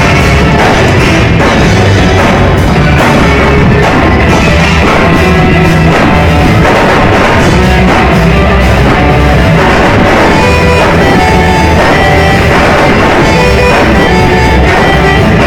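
Rock band playing live, loud: electric guitars over a drum kit beat.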